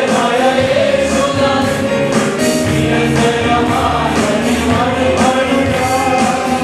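Group singing of a gospel worship song with accompaniment and a steady percussive beat about twice a second.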